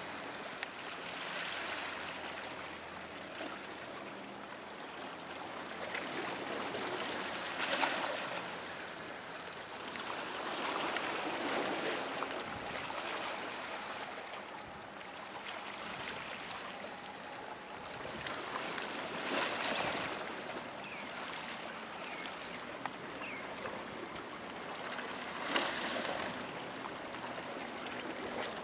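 Water washing against a rock breakwater, a steady hiss that swells in surges every few seconds.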